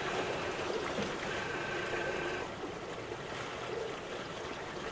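Water rushing and splashing along the hull of a small sailboat under way: a steady wash, with a faint high tone held for about a second near the middle.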